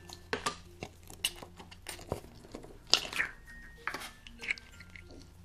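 Small pieces of slime handled by hand, stretched and pulled apart, giving faint sticky tearing sounds and scattered soft clicks and snaps.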